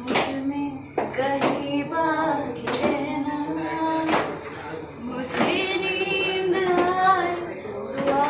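A woman singing a Bengali song unaccompanied, with long held notes, over sharp percussive taps every half second to second.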